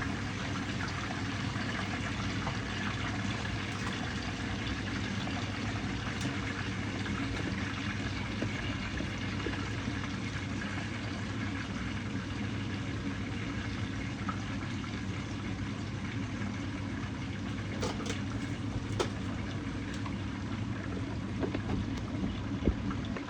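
Fish pan-frying in hot oil, a steady sizzle with a few sharp crackles near the end.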